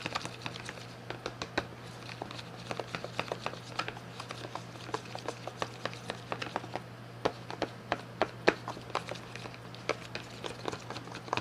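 Stirring glue and pink paint together for slime: a utensil taps and clicks irregularly against the container, many small knocks a second apart or less. A steady low hum runs underneath.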